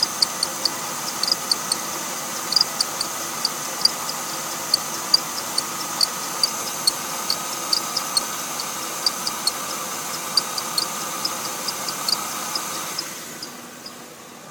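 Mercedes-Benz engine running from a cold start, with short, sharp squeaks from the accessory-belt pulleys, a few a second at uneven spacing, over a steady hiss and faint whine. The uploader takes the squeak for a weak belt tensioner or idler pulley. Near the end the running sound falls away and the squeaks mostly stop.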